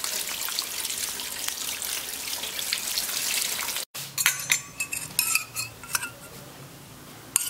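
Tap water running onto boiled noodles in a steel bowl as they are rinsed by hand, a steady hiss and splash. It stops suddenly about four seconds in, and a few sharp metallic clinks follow.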